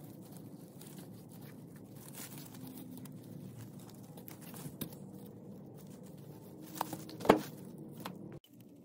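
Artificial flower stems and plastic leaves rustling as a bouquet is handled and pulled apart, with a few sharp snips of wire clippers cutting the wire stems, the loudest about seven seconds in. A steady low room hum runs underneath, and the sound cuts off abruptly near the end.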